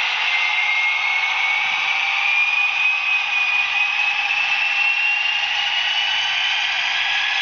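ESU BR232 model diesel locomotive's DCC sound decoder playing diesel engine sound through its small onboard speaker, thin with little bass, while the model runs along the track. A whine rises slowly in pitch throughout.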